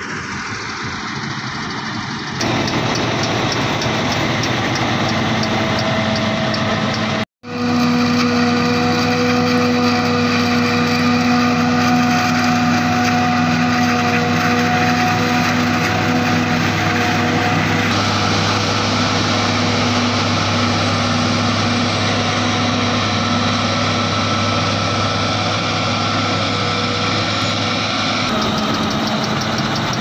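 Claas Jaguar 870 self-propelled forage harvester running under load while chopping maize: a steady heavy engine drone with several steady whining tones over it. The sound changes abruptly a couple of times and drops out briefly about seven seconds in.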